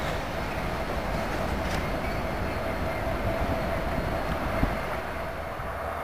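Freight train cars rolling past on the rails: a steady rumble with a thin steady tone over it and a couple of sharp knocks.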